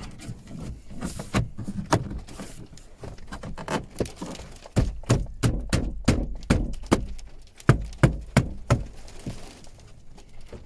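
Plastic dashboard trim of a Honda Civic Type R FN2 being pressed and knocked into place by hand over the head unit: a run of sharp clicks and knocks with some dull thuds, thickest from about five to nine seconds in.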